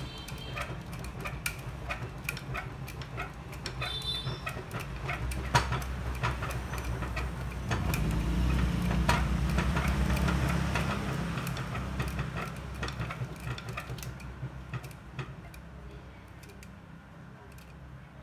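Geared coil winding machine spinning a coil former as copper wire is wound into coils for a 3 kW three-phase motor, with a steady rumble and rapid clicking from the mechanism. It is loudest around the middle and dies away near the end as the former comes to a stop.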